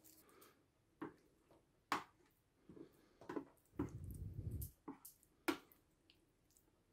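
Faint handling of MRE food pouches and packets: scattered sharp clicks and squishes, with a longer, lower rubbing sound about four seconds in.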